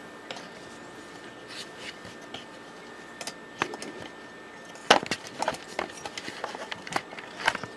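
Handling noises around the back of a desktop computer: scattered clicks and knocks, sparse at first and busier from about five seconds in, over a faint steady hum.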